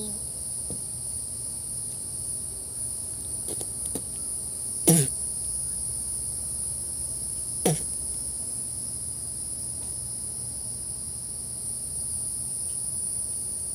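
Steady, high insect chirring in the background, with two brief falling sounds about five and eight seconds in.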